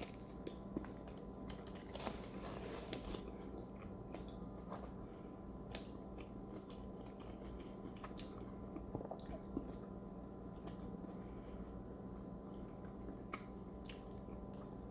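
A person chewing and biting into a burger close to the microphone: quiet mouth sounds with small scattered clicks, over a faint steady low hum.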